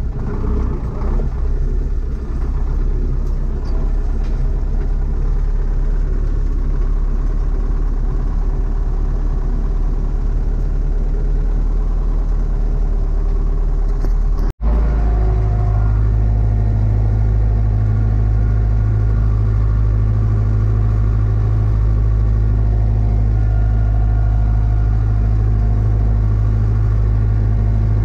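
Tractor diesel engine running steadily, heard from inside the cab as the tractor drives along. About halfway through the sound breaks off for an instant, then a steadier, deeper engine drone follows as the tractor pulls a seedbed combination cultivator through tilled soil.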